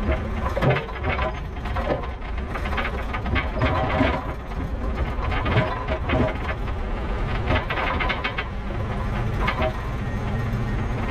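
Log truck driving slowly, its diesel engine running low and steady under constant irregular rattling and clanking from the trailer and rigging over rough ground.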